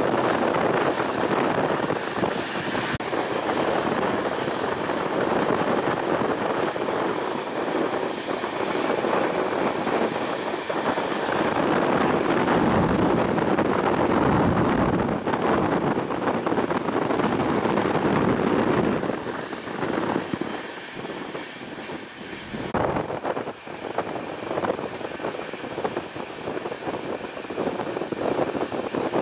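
Rushing wind and rolling wheel noise of a moving passenger train, heard from an open coach window, with the class 2044 diesel locomotive at its head. The sound drops noticeably about two-thirds of the way in.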